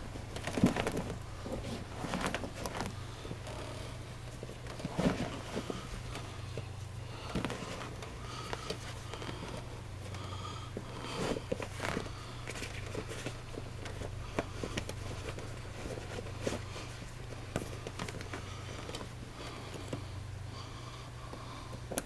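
Rubber buckle overshoe being tugged on over a work boot: irregular rubbing and creaking of rubber against the boot, with occasional knocks of the boot on the floor, the loudest about half a second in and again about five seconds in. A steady low hum runs underneath.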